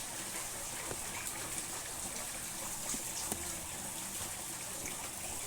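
Steady rain falling, an even hiss with scattered faint drip ticks.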